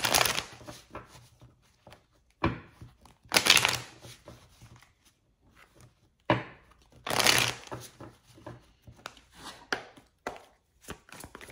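A deck of oracle cards being riffle-shuffled by hand, in several quick whirring bursts, with lighter card clicks and taps near the end.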